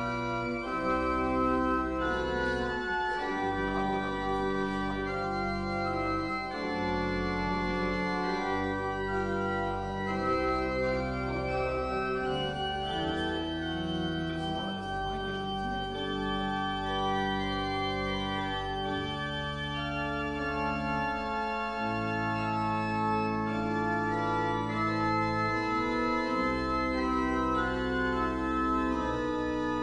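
Church organ playing the postlude after the blessing: slow, sustained chords that change every second or two over held low bass notes.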